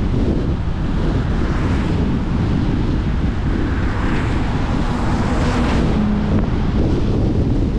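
Steady tyre and wind noise from a car driving on a wet road, with a brief swell of hiss about halfway through.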